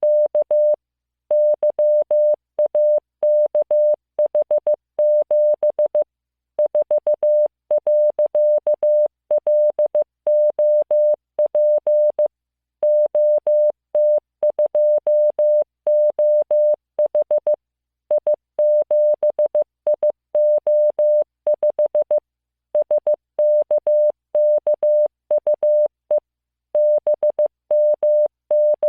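Morse code practice tone: a single steady beep keyed on and off in short dots and longer dashes, sending random five-character groups of letters and numbers, with longer pauses between groups.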